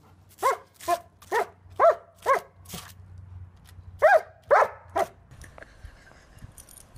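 A dog barking in short single barks, about nine in all: six in quick succession, a brief pause, then three more, stopping about five seconds in.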